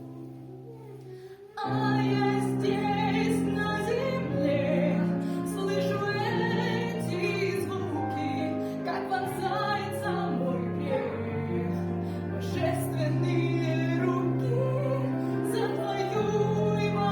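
A woman singing a Christian song over instrumental accompaniment. The music is quiet and thin for about the first second and a half, then comes back in full with the voice.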